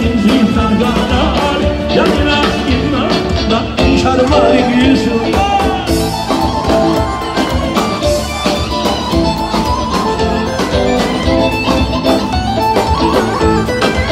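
Live band playing loud amplified music with a steady drum beat and bass guitar, and a singer's voice over it.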